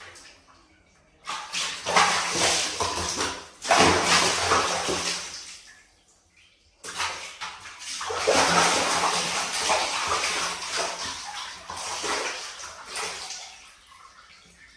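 Water splashing and sloshing in a plastic basin as a young macaque thrashes and dunks itself in it, in two bouts: one starting about a second in, and a longer one after a short pause near the middle, dying away near the end.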